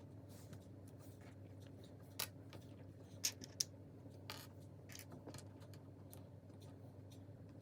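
LEGO pieces being handled and pressed together: scattered light plastic clicks and taps, a few sharper ones a little over halfway through, over a low steady room hum.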